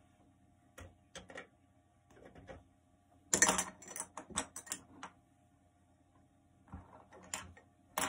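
Irregular light clicks and rattles of small hard objects being handled, with the loudest, densest run of clicks about three to five seconds in, over a faint steady hum.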